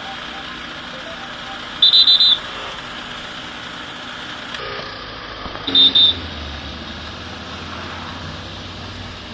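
Short, loud, high-pitched electronic beeps in quick runs, about four near two seconds in and two or three more near six seconds, over an engine running steadily.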